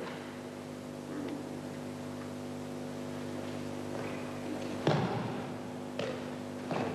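Three thuds of a thrown aikido partner's breakfalls on the mat, the loudest about five seconds in and two more in the following two seconds, over a steady electrical hum.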